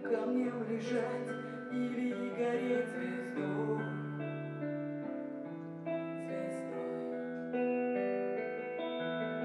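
Music played on piano or electric keyboard: sustained chords that change every second or so, with faint cymbal-like hits.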